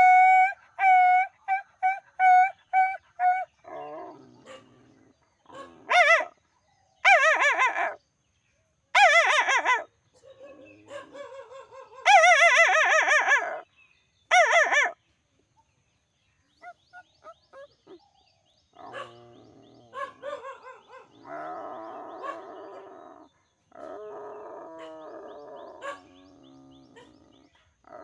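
A man imitating a dog with his voice: a quick run of yelps, then several loud drawn-out howls, answered by softer dog barking and howling in the second half.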